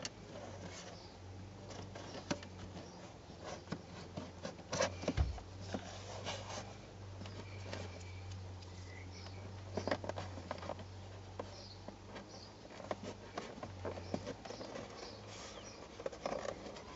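Scattered clicks, taps and rustling of hands pushing a dashcam's rear camera cable into the edge of a car's roof lining. There is a single louder thump about five seconds in.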